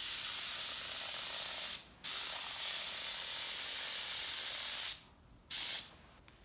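Airbrush spraying paint: a steady high hiss of air in two long bursts with a brief pause between them, then one short burst near the end.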